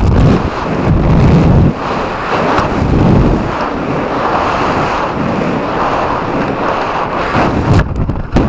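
Steady rush of wind over the microphone of a camera riding on a high-power model rocket in flight.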